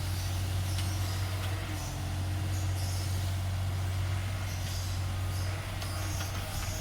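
Diesel engine of a heavy construction machine running steadily with a low, even hum.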